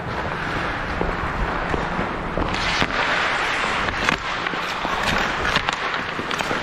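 Ice skates scraping across the ice in a steady hiss, broken several times by sharp clacks of hockey sticks and puck.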